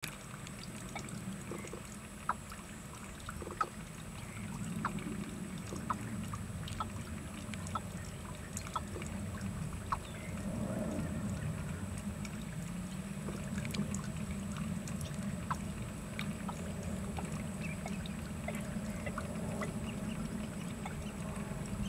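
Watercock calling: a long, continuous series of deep, rapidly repeated low notes.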